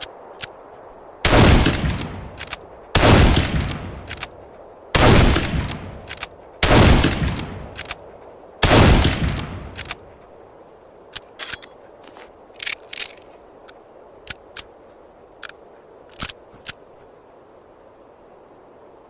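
Mauser Gewehr 98 bolt-action rifle fired five times, a shot every two seconds or so, each one trailing off in a long echo. About two seconds after the last shot comes a string of short, sharp clicks.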